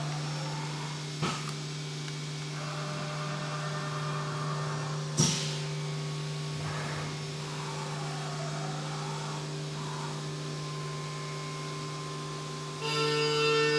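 Haas UMC 750 five-axis CNC mill running: a steady hum with whines that sweep down and back up, and two sharp clicks, the second louder. Near the end a louder ringing tone sets in.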